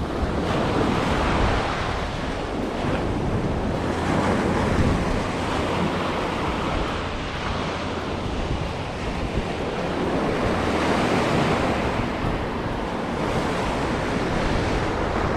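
Ocean surf breaking and washing up the beach, swelling and easing every few seconds, with wind buffeting the microphone.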